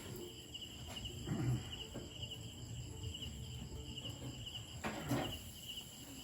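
Crickets chirping in a steady pulsing rhythm, about two pulses a second. Two short, louder rustles or knocks come about a second and a half in and about five seconds in.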